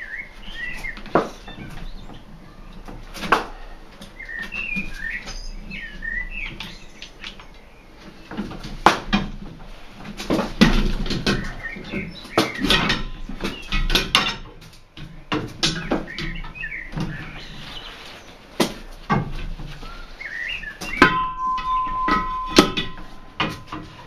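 Metal tire levers clanking and knocking against a steel wheel rim as a tire is levered onto it by hand on a manual tire changer, with scattered high chirping squeaks and a steady high squeal near the end.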